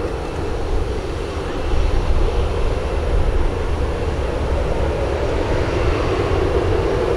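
Boeing 737-800 airliner on its landing roll after touchdown, its CFM56 jet engines making a steady rushing noise over a deep rumble, growing slightly louder about two seconds in.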